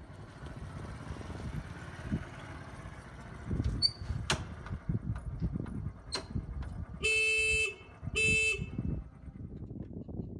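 A vehicle horn honks twice, two short steady tones about a second apart, over low background rumble with a few sharp clicks.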